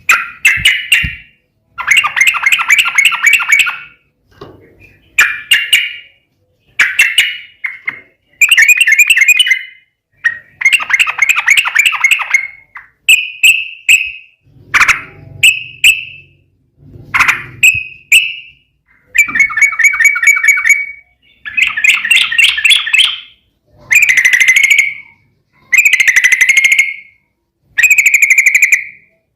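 Yellow-vented bulbul (trucukan) singing in its excited, rapid chattering style: a series of loud, bubbly phrases, each about a second or two long, with short pauses between them.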